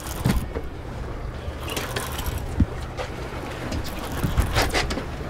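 Low steady hum of the boat's idling Suzuki outboard motors, with wind and water noise and a few scattered knocks.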